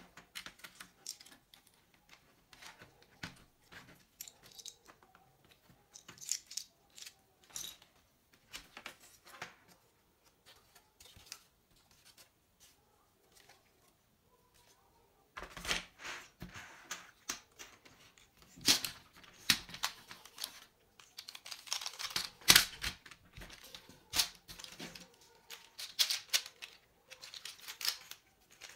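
Plastic parts of a gaming keyboard being pried apart and handled: scattered clicks and scrapes of the case and frame, becoming louder, busier clicking and rattling about halfway through.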